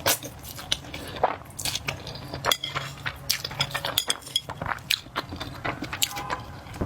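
Close-miked eating of spicy flat noodles: utensils tap and clink against the dish again and again, some with a short ringing ping, mixed with wet biting sounds.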